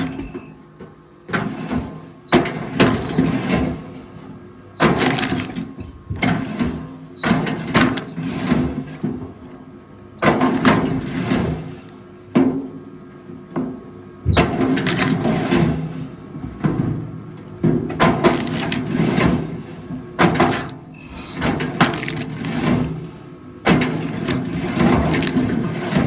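Firewood being split on a rail log splitter: a sharp crack of splitting wood every one to three seconds, some with a brief high squeal, over a steady low machine hum.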